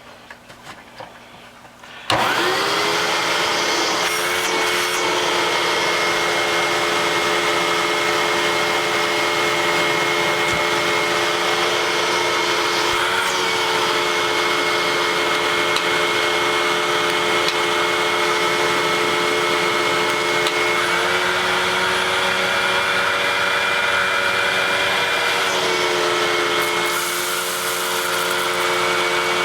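Vacuum cleaner switched on about two seconds in after a few small clicks, its motor whine rising quickly to speed and then running steadily. The pitch of the whine steps up or down several times.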